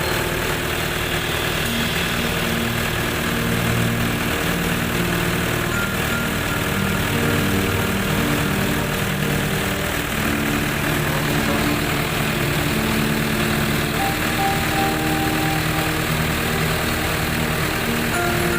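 Colt Diesel engine driving a well-drilling rig, running steadily at an even speed.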